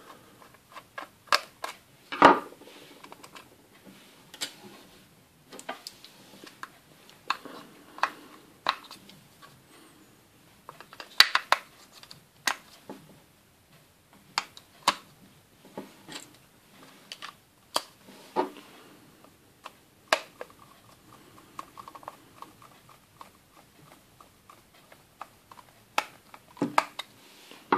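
Scattered small clicks, taps and knocks of hard plastic being handled: a screwdriver working the screw of a Playmobil toy bed's battery-compartment cover, and AAA batteries being set into the plastic compartment.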